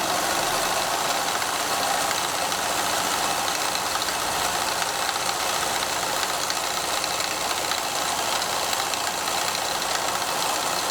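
Pfaff 211 sewing machine running steadily, sewing a dense embroidery stitch driven by a cam disc with the stitch length set close to zero.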